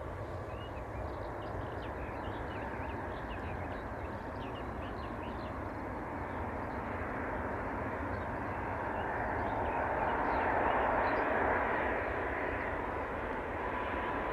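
Airbus A330 jet on final approach. Its engine noise is a steady rumble that swells to a peak about two-thirds of the way through, with a steady whine coming in as it nears.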